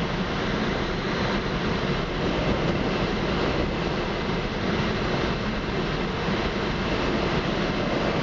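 Steady rush of airflow in a Slingsby Capstan glider's cockpit on aerotow, mixed with the drone of the tow plane's engine ahead.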